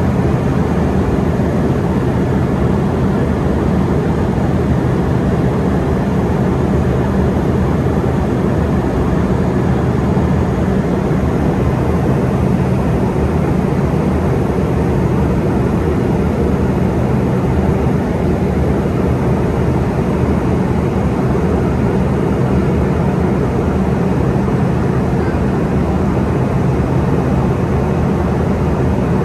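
Steady cabin noise of an Embraer ERJ145 airliner in cruise: the even low drone of its rear-mounted Rolls-Royce AE3007 turbofans blended with the rush of airflow, unchanging throughout.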